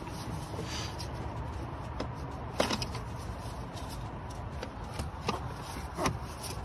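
Scattered light knocks, clinks and scrapes of metal parts being handled as a starter motor is worked loose from its mounting on the gearbox, over a steady low background hum.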